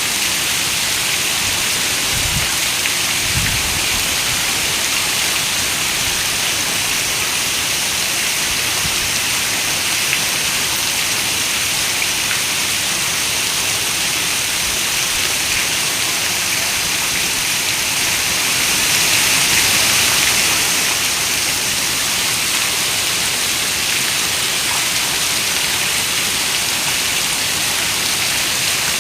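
Steady rain on a window, an even hiss strongest in the highs. Two short low thumps come about two and three seconds in, and the rain swells briefly about two-thirds of the way through.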